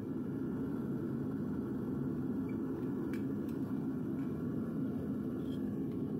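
Propane burner of a Devil Forge melting furnace running steadily with a low, even rushing noise. A few faint clicks about three seconds in.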